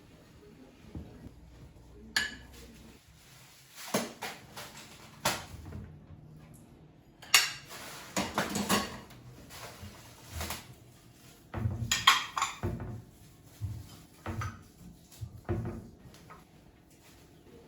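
Dishes and cutlery being handled: scattered clinks and knocks, with a denser run of clatter about seven to nine seconds in.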